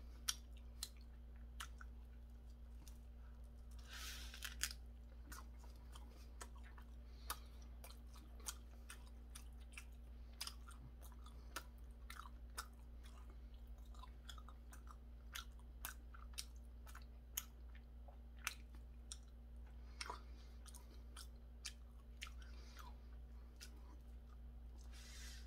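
Faint, close-up chewing of a seaweed-wrapped triangle kimbap (rice ball): soft wet mouth clicks scattered through, with a fresh bite near the end.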